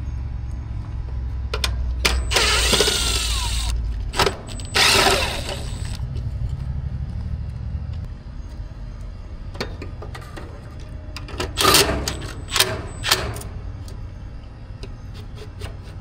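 Steady low hum of a nearby air-conditioner condensing unit running, which sounds rough, easing somewhat about half-way. Over it come two loud bursts of rustling noise a few seconds in, another cluster near the end, and scattered clicks of hands and tools at work on the unit.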